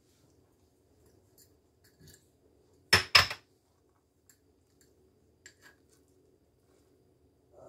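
Two sharp clicks about three seconds in as the wire-clasp lid of a glass jar is unlatched, followed by a few faint light ticks of a spatula against the glass while scooping.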